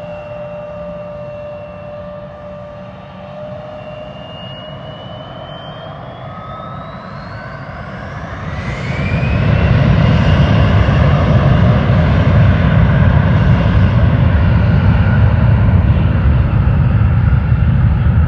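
Bombardier CRJ900 regional jet's two General Electric CF34 turbofans spooling up for takeoff: a steady whine begins climbing in pitch about four seconds in, and about nine seconds in the engines reach takeoff thrust, turning into a loud low rumble that holds.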